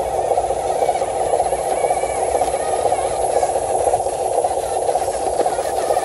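Radio-controlled dump truck's small electric drive motor and gearbox running steadily as it drives, a continuous whirring buzz.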